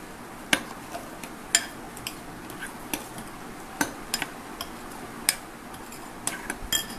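Steel spoon clinking against a glass bowl as it stirs a milky curd mixture: sharp, irregular clinks about once or twice a second.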